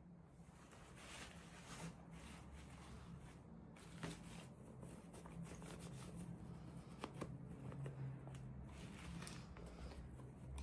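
Faint rustling and crinkling of packaging being handled, with a few light clicks, over a low steady hum.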